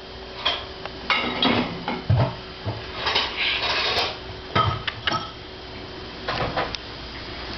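Irregular light clattering and knocking of small hard objects, with a denser rustling stretch about three seconds in.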